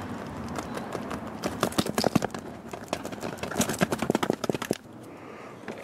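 A fast, irregular run of clattering knocks and clicks, loudest about two seconds in and again around four seconds, stopping abruptly near the end.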